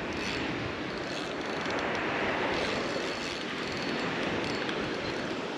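Spinning reel's drag buzzing steadily as a big fish strips line off against it.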